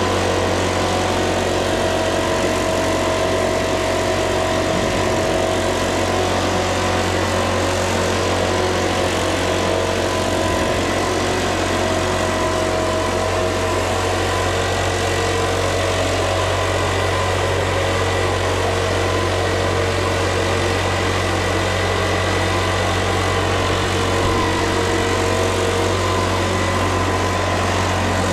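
Petrol backpack leaf blower's engine running steadily at a constant speed, with the rush of air from its tube.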